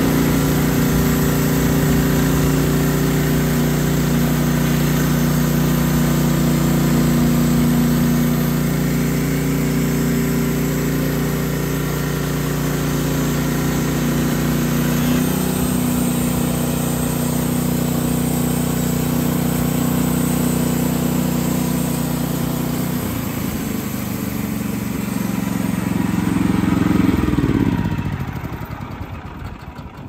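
Kohler Command PRO 14 engine on a Wood-Mizer LX55 band sawmill running steadily at full throttle while its 10-degree SilverTip band blade cuts through an eastern red cedar log. Near the end the engine swells briefly, then drops in pitch and winds down.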